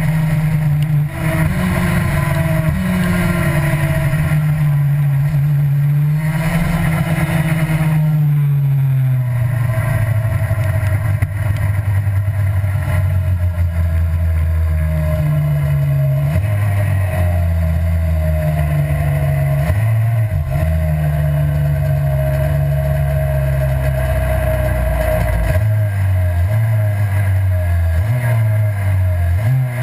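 Racing kart engine at full speed, heard from the kart's onboard camera. Its pitch rises and falls again and again as the driver accelerates and backs off through the corners, with a few sharp drops in pitch.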